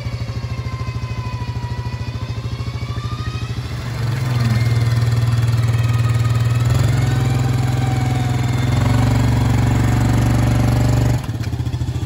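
ATV engine running steadily, then revved hard about four seconds in and held at high revs while the machine pulls through deep mud, dropping back suddenly near the end.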